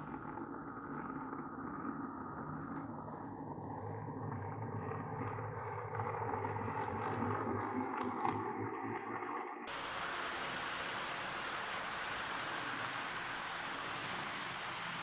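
HO-scale model trains running. A red-and-cream electric railcar's motor hums and its wheels run on the track as it pulls away from the platform after its timed automatic stop. About two-thirds in, the sound switches suddenly to a steady rolling hiss from a rake of coaches on the layout's track.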